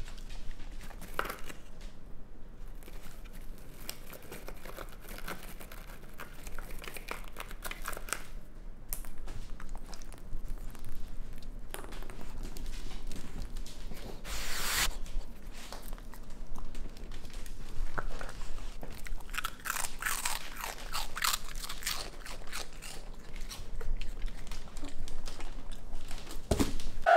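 A raccoon crunching and chewing crisp cheese puffs: a steady run of small crunches and mouth clicks, busiest in the second half, with one brief louder noise about halfway through.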